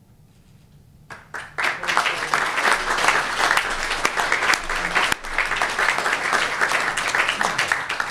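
Audience applauding. The applause begins about a second in, after a quiet moment, and stays dense and even, with a momentary dip about five seconds in.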